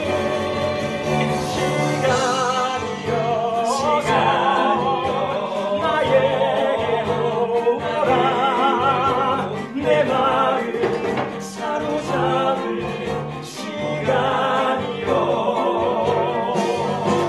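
Man singing a musical-theatre solo in Korean with strong vibrato on held notes, over instrumental accompaniment.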